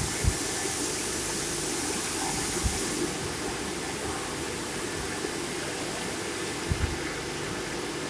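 Vacuum forming machine running steadily: a continuous hiss over a low hum, with a few dull low knocks. The level drops slightly about three seconds in.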